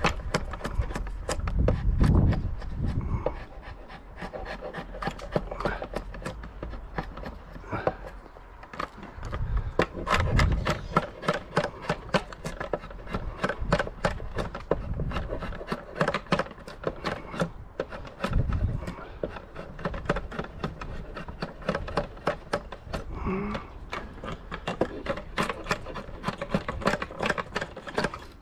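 Draw knife shaving a hazel pole clamped in a shave horse: repeated scraping strokes of the blade through the wood, full of sharp crackling clicks. A few low thuds come in between.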